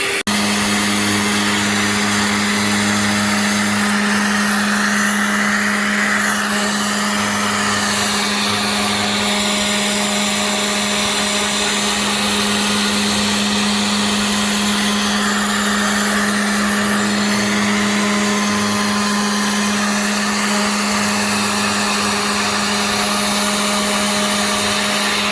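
Genmitsu 3020 PRO MAX CNC router running, its spindle giving a steady hum while the bit mills a part, over a rushing cutting noise that swells and fades as the toolpath moves.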